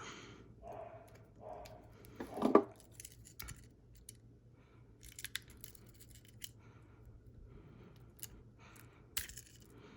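Small metal clicks and scrapes of a Swiss Army knife's tools being opened and worked, prying at a slot in the knife, with a louder brief sound about two and a half seconds in.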